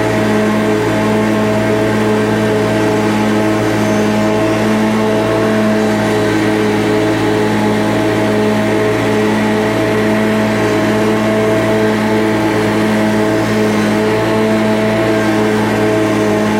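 Gasoline engine of landscaping equipment running steadily at a constant speed, with a slight regular pulse a little faster than once a second.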